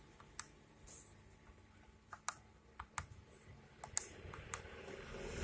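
Keys being pressed one by one on a BNI EDC card terminal's keypad as a PIN is typed in: a string of short, sharp clicks at uneven intervals.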